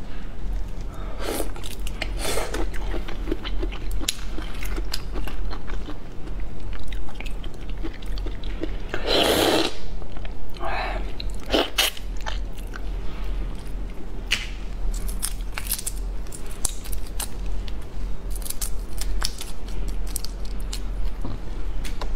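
Close-miked wet chewing and biting of soy-sauce-marinated shrimp, with short clicks and crackles as the shells are peeled by hand. There is a louder, longer mouth sound about nine seconds in.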